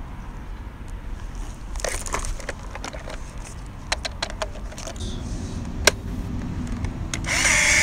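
Plastic clicks and rustling from a Polaroid 600 instant camera being loaded: an Impossible 600 film pack slides into the film door and the door snaps shut about six seconds in. Near the end the camera's motor whirs for about a second, ejecting the film pack's dark slide.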